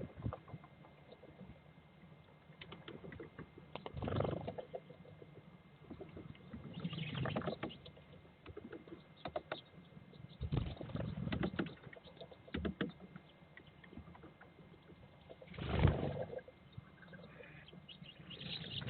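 Great spotted woodpecker pecking at a peanut wedged in a bark crack: bursts of rapid taps on wood, coming in clusters a few seconds apart, the loudest about sixteen seconds in.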